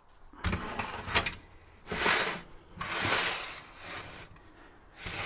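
Handling noise as the RC bulldozer's finished track assemblies are moved and set down on a workbench: a couple of sharp knocks in the first second or so, then rough scraping and rattling in several short stretches.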